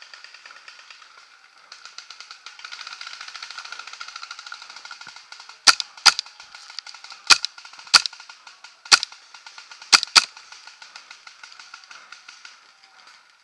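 Seven sharp paintball marker shots, some single and some in quick pairs, starting a little before halfway through. Under them runs a faint, steady crackle of many paintball markers firing further off.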